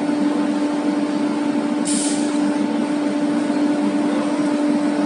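Steady hum of a wood CNC router machine running, one even tone with a fainter higher one over a noisy haze, and a short hiss about two seconds in.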